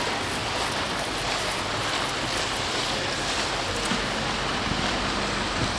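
Steady wash of choppy canal water and wind.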